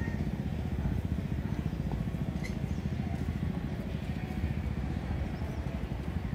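Steady low rumble of street traffic with motorbike engines.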